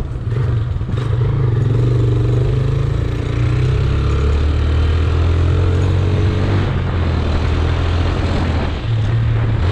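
Single-cylinder four-stroke Honda CG Titan 150 motorcycle engine with an aftermarket G-Moto exhaust pulling steadily while riding, its pitch shifting with the throttle and easing off briefly near the end. Wind noise over the microphone runs underneath.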